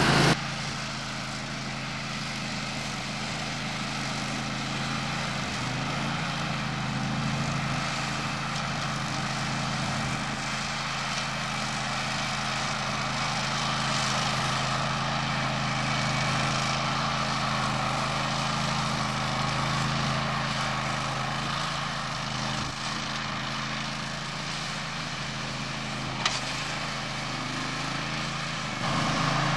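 Grillo Climber ride-on mower running steadily while its cutting deck mows long grass. There is one short click near the end.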